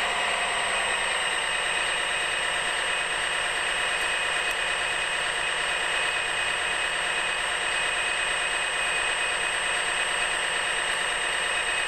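Radio-controlled scale excavator running: a steady, high-pitched whine made of several tones, with a faint low tone that dips slightly about a second in.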